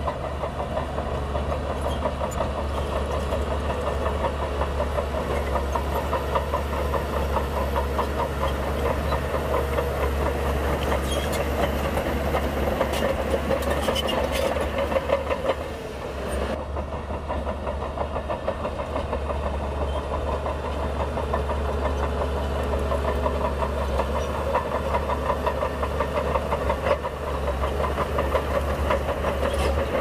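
Heavy diesel engine of earthmoving machinery running steadily, with a fast, even firing rhythm. A few short knocks are heard a little before halfway, and the sound briefly drops in level about halfway through.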